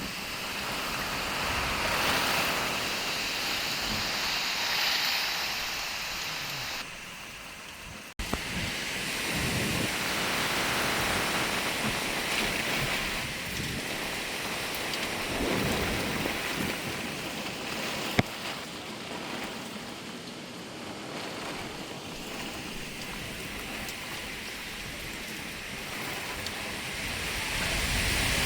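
Category 5 hurricane storm: heavy rain and strong wind rising and falling in gusts, with one sharp crack about eighteen seconds in.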